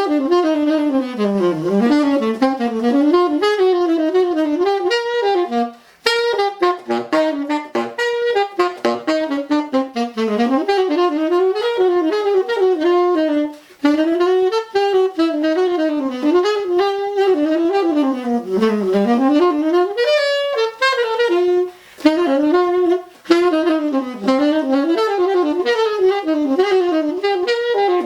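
Solo saxophone playing quick, winding jazz lines on a vintage, moldy Rico Orange Box 3.5 reed, with brief breaks about 6, 14 and 22 seconds in.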